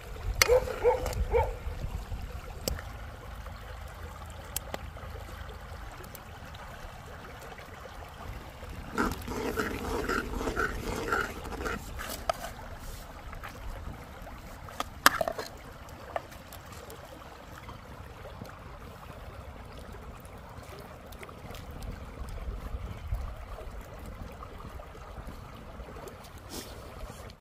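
A stream running steadily, with scattered sharp clinks of a metal ladle against the cooking pot and plate as rice and curry are served. A run of short repeated animal calls comes right at the start, and a louder run about nine to eleven seconds in.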